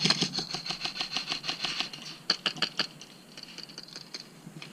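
Airsoft electric rifle firing: a rapid burst of sharp clicks for about two seconds, then a few single shots, then fainter scattered clicks.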